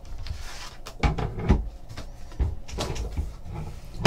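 Hands handling packaging as an item is taken out: a few short knocks and thumps with some rustling.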